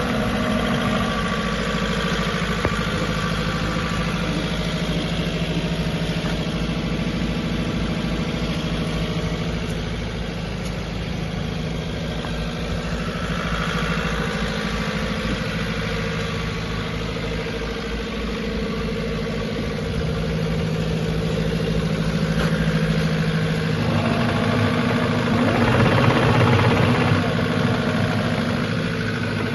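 Diesel engine of a JCB 86C-1 midi excavator running steadily at idle, growing louder for a few seconds near the end.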